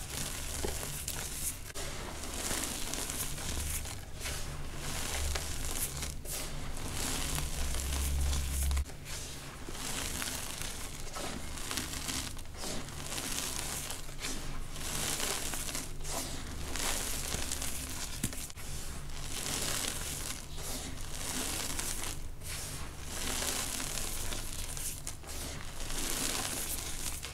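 Hands crushing and crumbling lumps of dry, dusty blue reformed powder mix, giving continuous soft crunching and crackling in squeeze after squeeze with brief pauses. A low hum runs under the first nine seconds or so.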